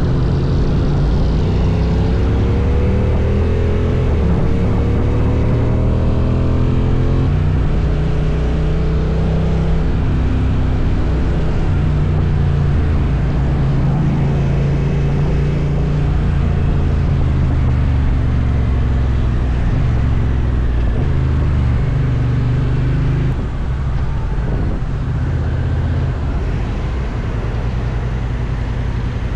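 Honda NT1100's parallel-twin engine accelerating, its pitch rising in several steps through the gears, then running steadily at speed. It eases off as the bike slows near the end.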